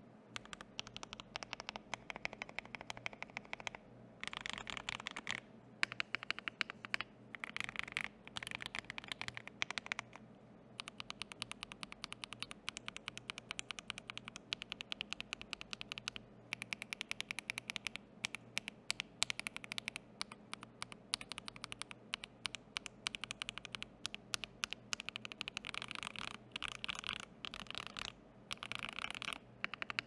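Typing on a mechanical keyboard with lubed Akko CS Silver linear switches in a Tofu65 V3 with a brass plate and Cherry-profile PBT keycaps: a fast, continuous stream of key clacks as the keys bottom out, with a few short pauses.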